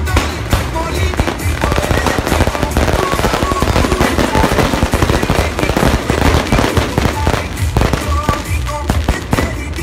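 Fireworks going off in a dense, rapid run of crackling bangs, with music playing underneath.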